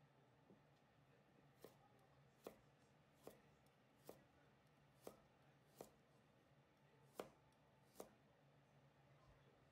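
Kitchen knife chopping burdock root on a hinoki wood cutting board: about eight sharp knocks, roughly one a second.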